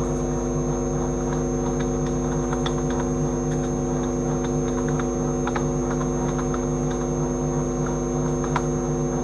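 Steady electrical mains hum with a stack of even overtones and a thin high-pitched whine, with a few faint clicks scattered through it.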